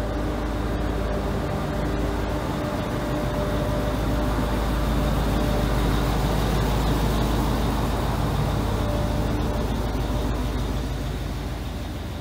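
Trenitalia regional multiple-unit train running past along the platform, a steady mechanical hum with a few held tones under rumbling noise. It grows louder to a peak about halfway, then fades as the train moves away.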